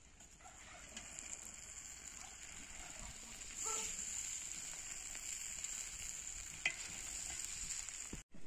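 Food sizzling steadily in a cast-iron cauldron over a wood fire while a metal slotted spoon stirs it. The sizzle gets a little louder about three and a half seconds in, and there is one sharp click of the spoon near the end.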